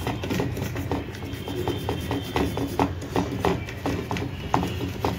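Stiff plastic brush scrubbing a computer motherboard in short, quick back-and-forth strokes, a few a second, over a steady low hum.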